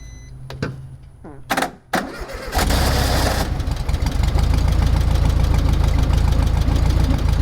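1973 VW Super Beetle's air-cooled 1600 flat-four being started. After a few clicks the engine catches loudly about two and a half seconds in, then runs steadily with an even beat.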